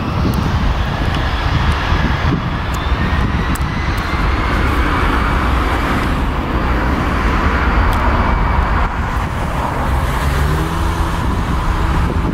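Jet engines of an Airbus A320-family airliner running at high power as it rolls along the runway: a steady, loud rushing noise with a faint whine above it.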